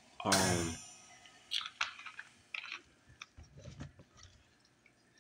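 A short breathy vocal sound near the start, followed by scattered faint clicks and small taps.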